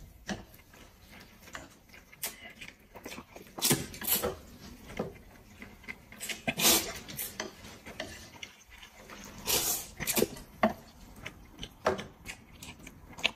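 A man slurping noodles with chopsticks, in short, irregular slurps a second or several apart.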